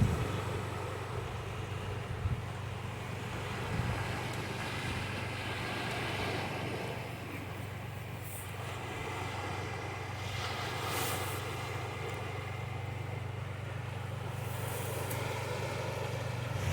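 A steady low engine hum over a continuous wash of sea and wind noise.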